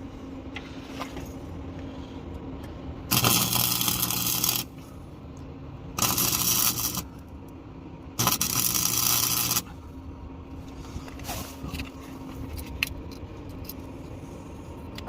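Welder laying short weld beads on the exhaust around the oxygen sensor mount: three bursts of crackling arc, each one to one and a half seconds long, with a low buzz under each. A steady low hum fills the gaps between them.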